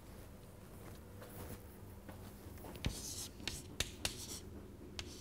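Chalk writing on a chalkboard: faint scratching, with several sharp taps of the chalk from about halfway in.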